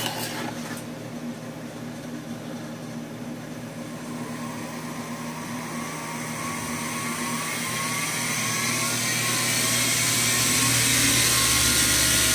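Treadmill DC motor belted to an X2-type mini mill spindle, speeding up as its speed control is turned up. It gives a rising whine that grows louder over the second half and then holds steady near the end.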